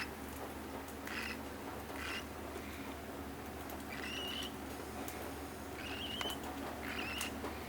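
Baby bird chick peeping: short, high calls about once a second, a few of them drawn out with a wavering pitch, over a low steady hum.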